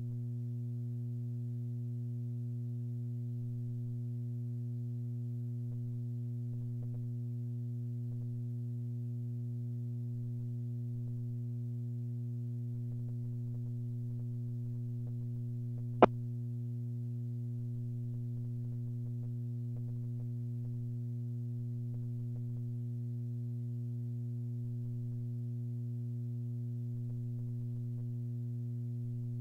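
Steady electrical mains hum with a few even overtones, broken once by a single short, sharp click a little past the middle.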